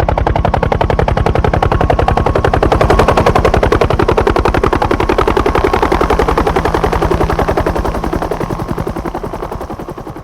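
JUH-1H Huey helicopter close by, its main rotor beating in a rapid, very even rhythm over a steady turbine whine, fading away near the end.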